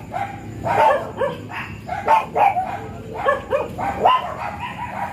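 Japanese Spitz dogs giving a rapid run of short, high yips and whines, several a second, some rising in pitch.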